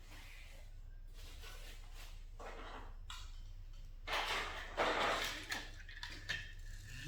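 A series of rustling, scraping swishes, like cardboard or plastic being handled and slid about, loudest from about four to six seconds in.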